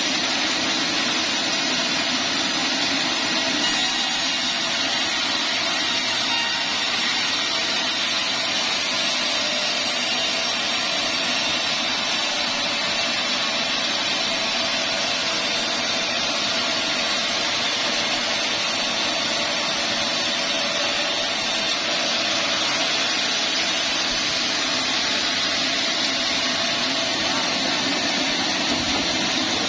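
Band sawmill running steadily as it saws teak into boards, with a fine high-pitched edge added from about four seconds in until about eight seconds before the end.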